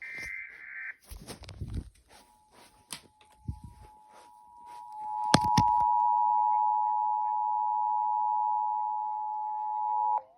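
Emergency Alert System broadcast: the tail of a buzzy SAME header data burst, then the EAS two-tone attention signal, two steady pitches sounded together. The tones come in faintly about two seconds in, grow loud, hold steady and cut off abruptly just before the end, with a few sharp clicks over the first half.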